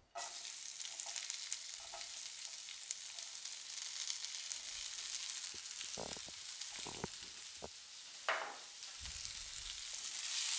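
Sliced red onions sizzling in hot oil in a frying pan, the sizzle starting suddenly as they drop in and swelling again near the end as they are stirred. A few light knocks sound in the second half, the loudest a little after eight seconds in.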